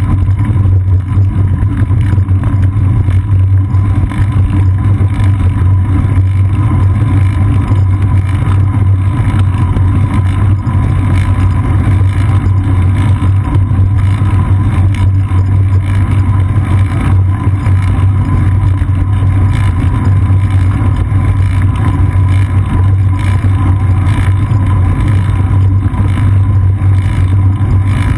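Steady, loud low rumble of road vibration and wind picked up by a GoPro Hero 2 mounted on a bicycle's seat post as the bike rolls along an asphalt street.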